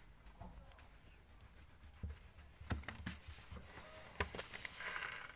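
Pencil and eraser handled on paper: a few light taps and knocks, then a short stretch of scratchy rubbing on the paper near the end.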